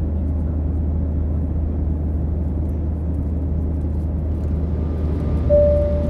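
Steady low engine rumble with a noisy haze over it, and a single held tone coming in about five and a half seconds in.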